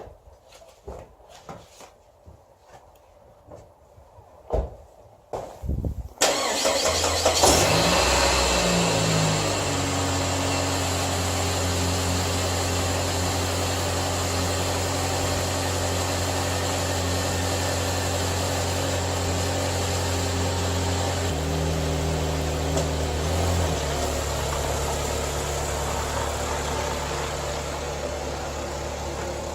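A few clicks and knocks, then about six seconds in the 2005 Saab 9-5 Aero's turbocharged four-cylinder engine cranks briefly and starts. It settles into a steady idle, and its note shifts lower about two-thirds of the way through.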